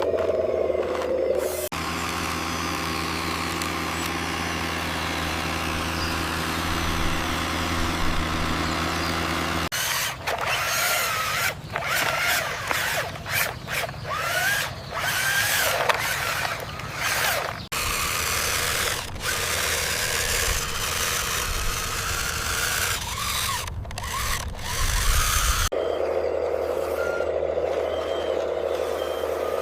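Small electric motors of remote-control construction vehicles whirring, with a steady hum in the first and last parts. In the middle stretch there are many irregular knocks and short rising and falling whines as the models work.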